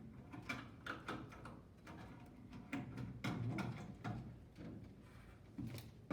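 Irregular clicks and knocks of cable and fittings being handled and pushed into place as cabling is fed into an air conditioning unit's terminal connection.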